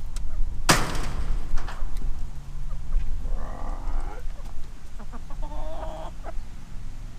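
Backyard hens clucking in their coop, with two longer drawn-out calls in the middle and scattered small ticks. A single sharp knock about a second in is the loudest sound.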